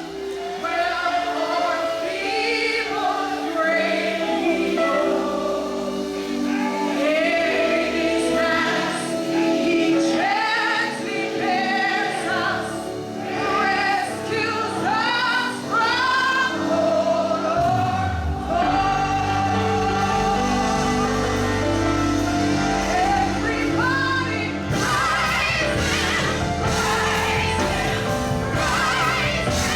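Gospel choir singing with instrumental accompaniment. A heavier bass comes in about two-thirds of the way through and the sound grows fuller near the end.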